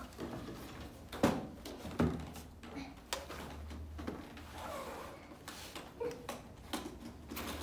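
Light plastic toys being handled: children's magnetic drawing boards and their plastic shape stamps knocking and clicking. The sounds come as a string of irregular sharp clicks and knocks, a dozen or so over the span.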